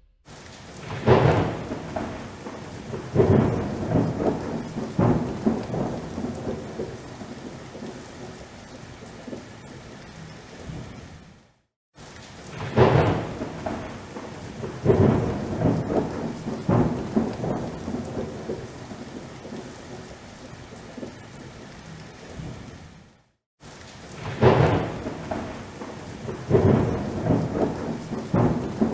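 Heavy rain with thunder: a steady hiss of rain with several loud rolling rumbles near the start of each stretch. The same stretch of about eleven seconds plays three times, each separated by a sudden cut to silence lasting a fraction of a second.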